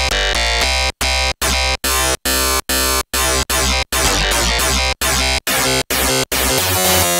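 DIY ESP32-based FM synthesizer playing a quick run of chopped notes, about three a second, each cut off by a hard gap, over a pulsing bass; some notes sweep downward in tone.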